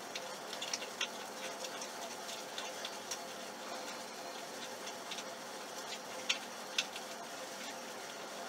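Toothpick clicking and scraping against the inside of a small plastic cup while stirring a thick toothpaste-and-Vaseline paste: scattered faint ticks over a steady hiss, the sharpest two about six and a half seconds in.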